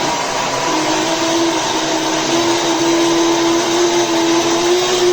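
Wavytalk 1875 W ionic hair dryer running steadily: a constant rush of air with a motor whine that settles into one steady tone about a second in.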